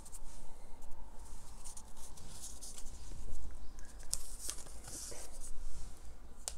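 Small paper cards being handled: light rustling with scattered soft clicks and taps.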